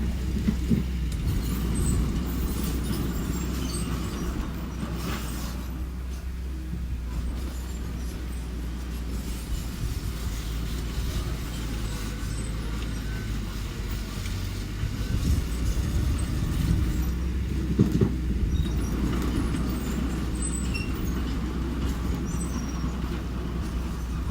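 Engine of a mini bulldozer or mini dump truck running steadily, a low hum with a few sharp clanks of machinery along the way.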